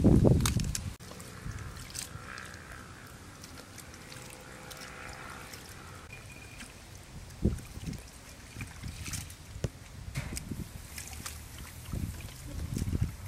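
Water sloshing and splashing in a steel basin as hands wash leafy greens, with scattered small splashes and drips. A louder low rush fills the first second.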